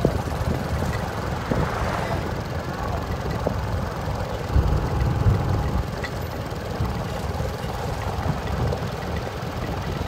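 Steady low rumble of a moving vehicle, with wind buffeting the microphone.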